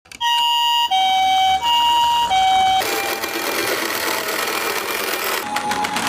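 Toy ambulance's electronic siren sounding a two-tone hi-lo call, four alternating notes of about two-thirds of a second each, then giving way to a steady noisy whirr as the toy rolls along.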